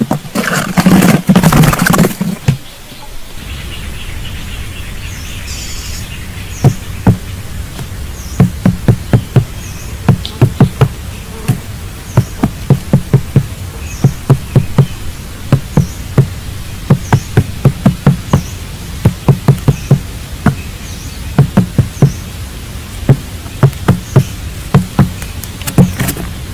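Many sharp, irregular clicks and taps over a steady low hum, with faint short high chirps repeating about once a second; a loud rustling noise fills the first two seconds.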